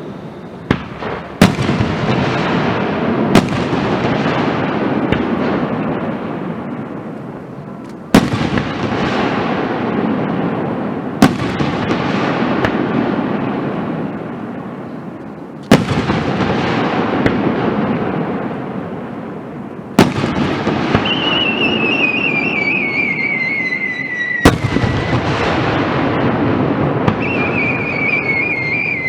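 Aerial fireworks display: shells bursting with sharp bangs every few seconds, each followed by a long spell of crackling. Two whistles fall in pitch in the last third.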